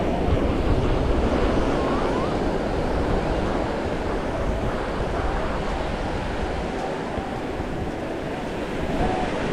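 Ocean surf breaking and washing up on a sandy beach, a steady rush of water, with wind buffeting the microphone as a low rumble that eases for a few seconds about seven seconds in.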